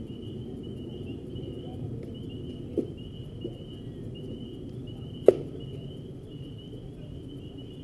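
Insects chirping in a steady, evenly pulsing trill over outdoor noise, broken by a small sharp crack about three seconds in and a much louder crack a little past five seconds: a baseball impact at home plate.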